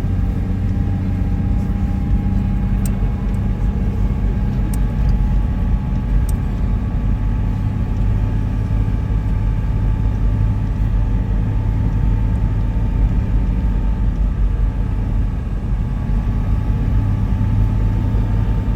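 Car driving at a steady speed: a low, even engine and road rumble, with a faint tone above it that slowly rises in pitch.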